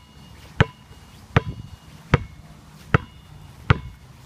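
Basketball being dribbled on asphalt: five sharp bounces, evenly spaced about three-quarters of a second apart, some with a short ring.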